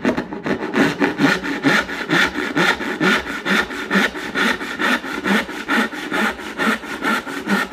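Freshly sharpened rip-filed Lie-Nielsen dovetail saw cutting into a board in quick, even back-and-forth strokes, about two a second. The saw is binding a little in the kerf.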